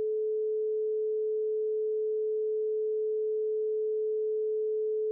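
A pure 432 Hz sine tone, held steady at one pitch with no overtones.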